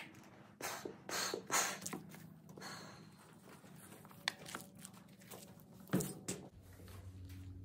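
Scattered rustling and light knocks of handling, with rubber gloves being pulled on and the slab saw's metal hood being touched; the loudest knock comes about six seconds in. A faint low hum runs underneath.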